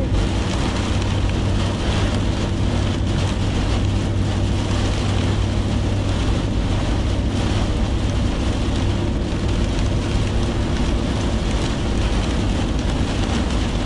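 Heavy rain falling on a moving car, heard from inside the cabin over a steady hum of tyres and engine.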